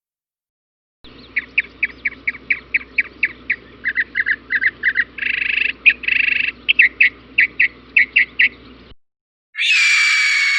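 A bird calling: a quick run of short, sharp notes, about three to four a second, broken by two longer chattering stretches midway. Near the end a different sound begins, a loud sustained tone that slowly falls.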